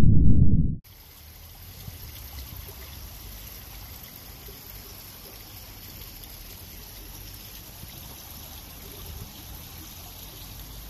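A loud low rumble cuts off abruptly under a second in, giving way to steady, soft trickling water running down a small stone cascade of a garden water feature.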